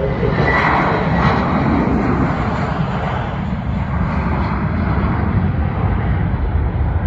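Airbus A321 airliner's jet engines at takeoff power during its takeoff roll: a loud, steady rush of engine noise heard across the airfield, swelling a little about half a second in.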